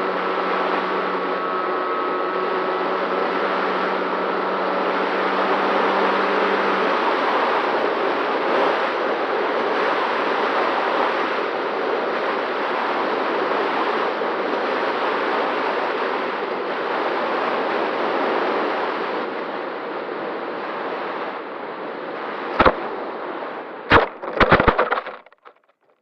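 Airflow rushing over an FX-79 flying-wing model plane, heard from its onboard camera, with the electric motor's steady whine until it cuts out several seconds in. Near the end come a few sharp knocks, then the sound cuts off suddenly.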